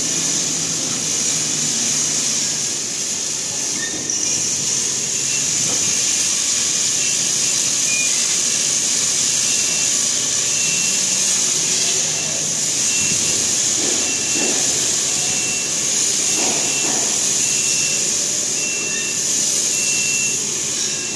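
Heavy diesel truck running with a loud, steady high hiss over a low engine rumble. From about four seconds in, a faint short beep repeats roughly once a second.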